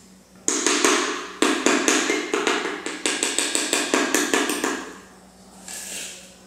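Mason's trowel handle tapping a ceramic tile shard down into a pad of fresh mortar: a quick run of sharp taps, about three a second, for some four seconds. The shard is being bedded to height as a level guide for a cement subfloor screed.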